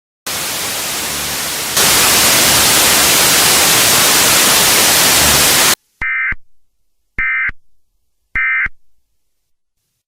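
Television static hiss that jumps louder about two seconds in and cuts off suddenly, then three short bursts of Emergency Alert System data tones about a second apart, each fading out with an echo. Three short bursts like these are the alert's end-of-message signal.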